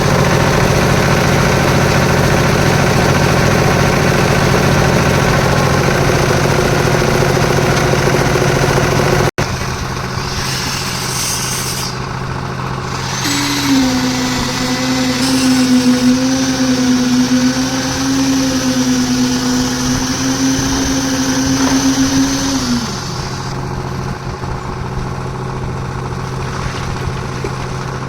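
Concrete mixer's engine running steadily, with an abrupt break about a third of the way in. A loud, slightly wavering hum then joins it for about nine seconds and stops suddenly.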